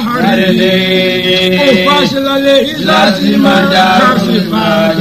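A single voice chanting Quranic recitation, holding long drawn-out notes with gliding turns of pitch between them.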